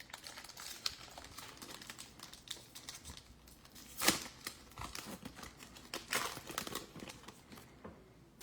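Trading-card pack wrapper being torn open and crinkled, with the loudest rip about four seconds in and another spell of crinkling around six to seven seconds in.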